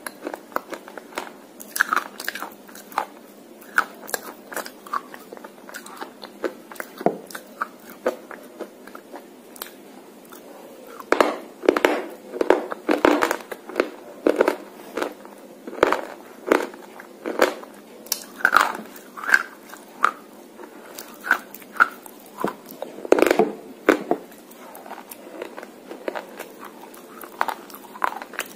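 A slate pencil coated in red clay paste being bitten and chewed: a long run of sharp crunches. The crunches are sparse at first and come thickest in a flurry a little before the middle, with another flurry about three-quarters through.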